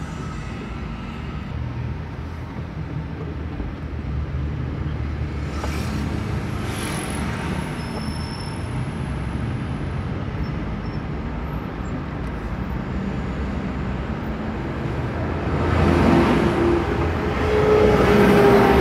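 Car engine and road noise heard from inside the cabin while driving in slow city traffic, a steady low rumble. Other vehicles pass with swells of noise, the loudest near the end.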